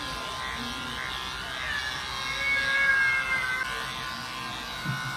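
A Persian cat gives one long, drawn-out meow of about two seconds, starting about two seconds in, over the steady buzz of electric pet clippers shaving its fur.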